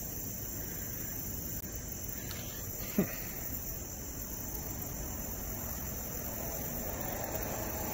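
Crickets chirping steadily, with one brief sliding sound about three seconds in.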